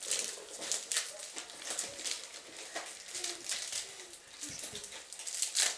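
Tissue paper and plastic gift wrapping rustling and crinkling as a present is unwrapped and handled, with a string of crisp crackles and a louder crackle near the end.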